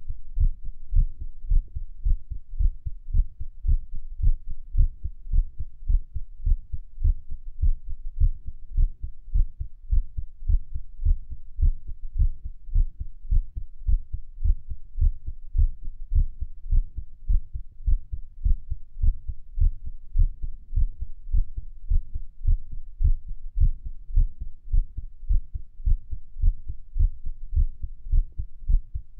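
Heart sounds recorded close against the chest at Erb's point: a steady run of low lub-dub beats with nothing else heard.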